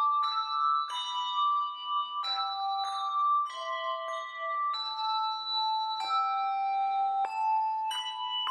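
A handbell ensemble playing a slow tune: several bells struck together in chords, the chords changing about once a second, each note ringing on until the next is struck.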